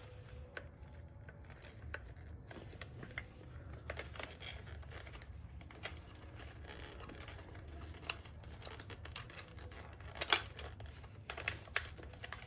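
Scattered small clicks and rustles of hands fiddling with plastic trim and wiring while fitting a steering wheel, with a sharper click about ten seconds in, over a low steady hum.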